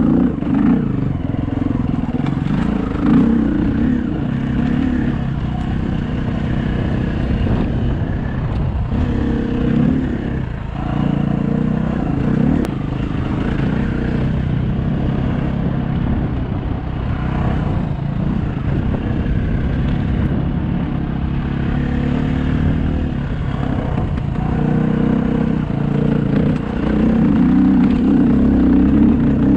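Dirt bike engine running hard while riding a single-track trail, its pitch rising and falling with the throttle and easing off briefly a few times.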